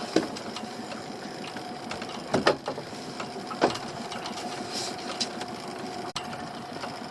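Hands working on a homemade crab pot during a repair: three sharp knocks and some handling noise over a steady machine hum.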